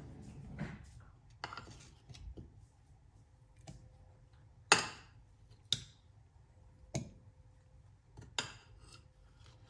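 Scattered clicks and light knocks of kitchen things being handled, about nine in all, the loudest about halfway through; the blender's motor is not running.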